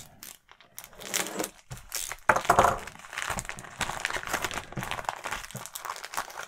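Thin plastic sleeve around a LEGO instruction booklet crinkling and tearing as it is slit open and pulled off the booklet, loudest about two and a half seconds in.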